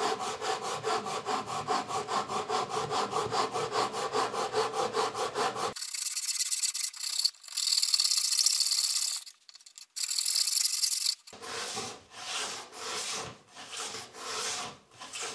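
A Japanese dozuki back saw cutting a groove wall in wood with quick, even strokes. After about six seconds the strokes thin to a hiss, and near the end they turn slower and longer as the cut reaches full depth.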